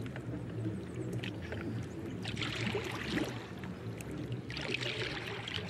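Water splashing and lapping around a man in a lake, from a film soundtrack, with two louder splashy surges about two and a half and four and a half seconds in, over a steady low hum.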